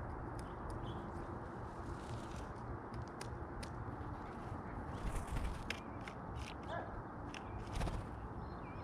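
Steady rushing outdoor background noise with scattered sharp ticks and clicks. Near the end comes a brief flutter of a blue jay's wings as it flies in toward the feeder.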